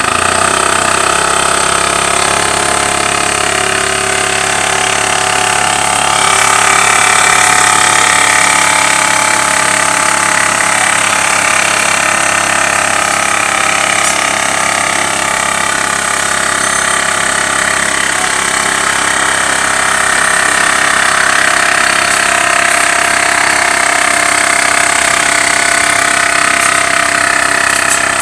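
Makita AC401NX air compressor running steadily, its motor and pump going without a break.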